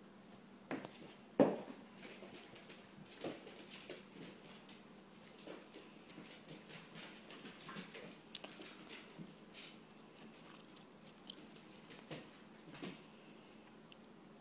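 Corgi puppy chewing and mouthing a cotton rope toy, with scattered light taps and clicks of its paws and claws on a hardwood floor as it scampers about, and one louder knock about a second and a half in.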